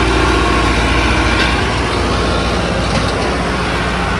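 Tractor diesel engine running steadily under load while pulling a heavily loaded sand trailer, with a few faint knocks from the rig.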